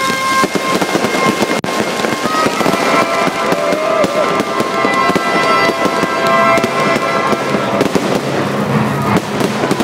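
Aerial fireworks bursting overhead in a dense, continuous barrage of crackling reports.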